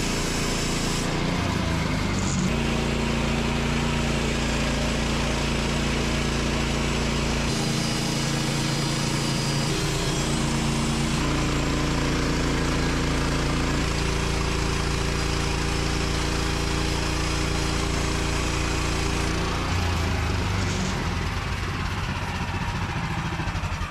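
Petrol engine of a Woodland Mills HM130 MAX portable bandsaw mill running steadily under load while its blade cuts a Douglas fir log into 2x12 boards. The engine note shifts in pitch several times as the load changes.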